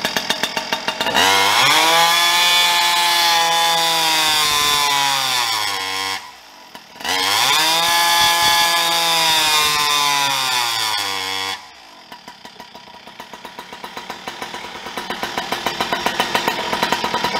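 Farmertec G395XP, a 94cc two-stroke Husqvarna 395XP clone, running through a tuned expansion-chamber exhaust on a dyno. It is held at full throttle twice, with a brief drop in between, and its pitch sags and then levels off under the dyno's load each time. It then falls back to a pulsing idle that quickens near the end.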